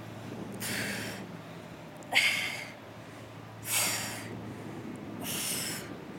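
A woman's forceful exhalations, four in a row about a second and a half apart, one on each crunch as she lifts up, breathing hard from the effort. The second breath, about two seconds in, is the sharpest and loudest. A faint steady low hum runs underneath.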